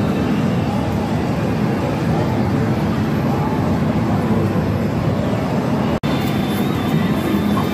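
Loud, steady din of a pachislot parlour, many machines' sounds blending into one wash. The sound cuts out for an instant about six seconds in, and a thin steady high tone from the slot machine joins it after that.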